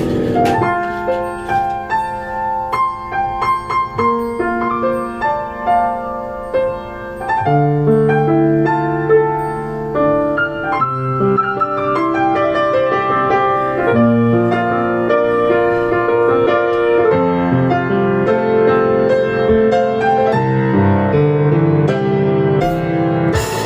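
Acoustic piano played live, a flowing melodic passage of many ringing, sustained notes.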